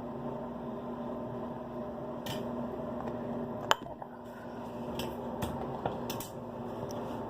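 Small clicks and taps of things being handled, the sharpest a little under four seconds in, over a steady low hum.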